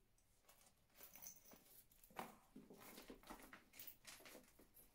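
Faint, irregular rustling and light clicks as a fabric scarf and a chain-strap handbag are handled.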